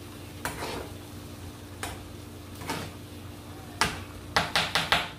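Spoon knocking and scraping against a small frying pan while stirring tomato sauce: separate knocks about a second apart, then a quick run of about five taps near the end, over a steady low hum.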